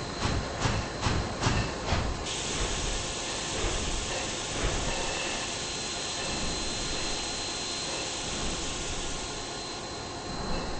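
Steam train: rhythmic beats, about two or three a second, for the first two seconds. Then a sudden, steady hiss of steam starts and holds.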